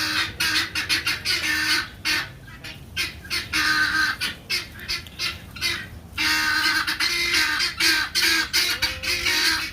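A flock of guinea fowl giving harsh, rapid, repeated alarm calls, many birds at once, thinning to separate calls midway before the full chorus picks up again. They are alarmed by a familiar dog now wearing a cone.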